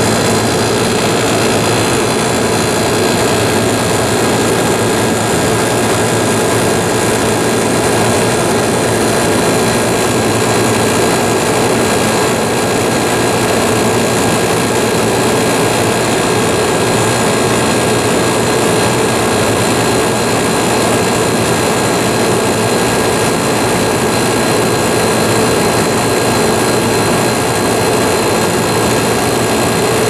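Amana Cool Zone 18C3MD 18,000 BTU wall air conditioner running steadily: fan air rushing through the grille over the hum of its rotary compressor, with a few faint steady tones and no change in level. The unit is running normally.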